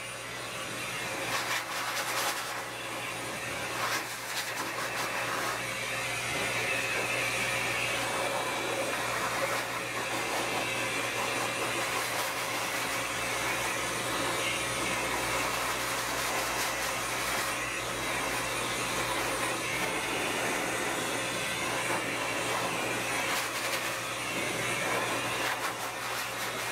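High-velocity dog grooming dryer blowing air through its hose onto a wet poodle's coat: a steady rush of air over a motor hum, wavering a little in the first few seconds as the nozzle moves.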